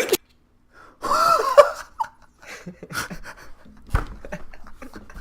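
A person's broken sneeze: a sudden, loud breathy burst about a second in, followed by short breaths and a low thump about four seconds in.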